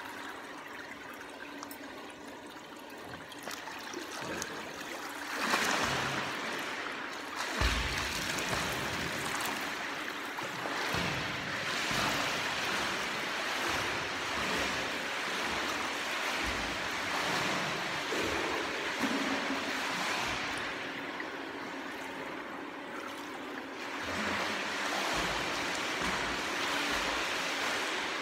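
Water splashing in a swimming pool: a swimmer getting into the water about five seconds in, then continuous splashing from his swimming strokes.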